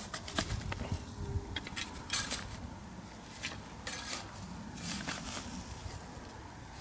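A shovel scraping and pushing loose clay soil back into a hole, in short, irregular strokes.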